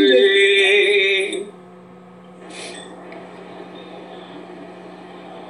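A voice holding one sung note for about a second and a half, then only a steady low hum with a short hiss about two and a half seconds in.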